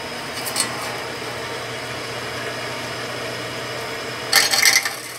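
Bench drill press motor running steadily while its bit cuts into the metal shell of a motorcycle exhaust muffler. A short burst of harsh, high-pitched grinding comes near the end.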